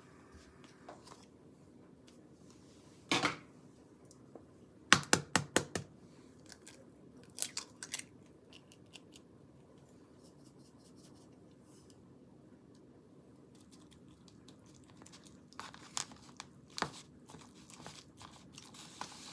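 Quiet kitchen handling sounds: a short knock about three seconds in, a quick run of sharp clicks around five seconds in, and a few faint shakes of a salt and pepper shaker. Near the end, a wooden spoon stirring egg into rice clicks against a plastic container.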